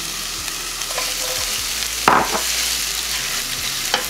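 Chopped onion sizzling in hot oil in a nonstick pan while a spatula stirs it, with a sharp knock about two seconds in.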